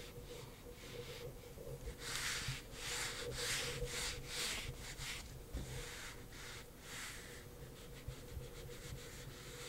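Whiteboard eraser rubbing across a whiteboard in quick back-and-forth wiping strokes, about two a second, louder from about two seconds in.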